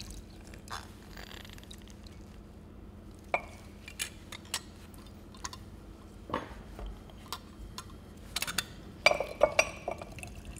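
Stainless-steel hand lemon press squeezing lemon halves over a glass jar: scattered sharp clicks and metallic clinks, a few with a short ring, as the press's hinged cups close and knock against the jar. The clicks come thickest near the end.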